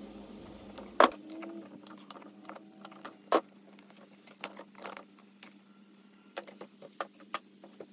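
Pliers and fingers picking and peeling tape and glue off a wooden burl bowl: scattered small clicks, ticks and scrapes, with a sharp click about a second in and another about three and a half seconds in, over a faint steady hum.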